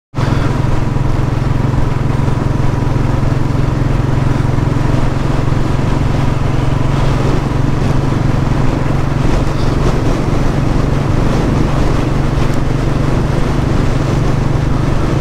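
Royal Enfield Meteor's single-cylinder engine running steadily at cruising speed, heard through a helmet-mounted microphone with wind rushing over it.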